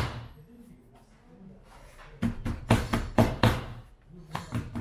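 Rapid rhythmic knocking, about five sharp strikes a second. One run starts about two seconds in and lasts over a second, and a second run begins near the end.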